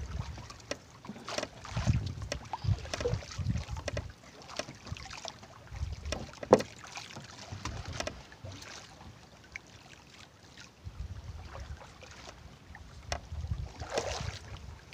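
Water lapping and sloshing against a kayak hull, with scattered light knocks and clicks and one sharper knock about six and a half seconds in.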